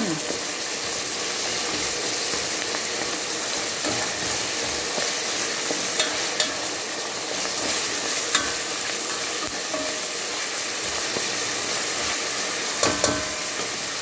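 Ground pork, garlic, onion and ginger sizzling in hot oil in a metal pot, a steady frying hiss. A spatula clicks against the pot a few times while stirring, twice in quick succession near the end.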